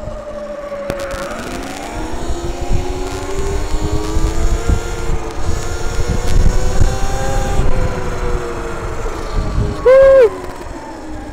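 Sur-Ron electric dirt bike's motor whine rising as it speeds up, then falling as it slows, over a low rumble of wind on the microphone. About ten seconds in, a short, loud horn beep.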